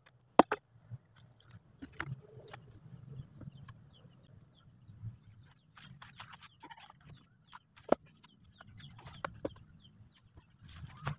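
Freshly sawn wooden planks being lifted, moved and set down, giving a scattering of sharp wooden knocks and clatters.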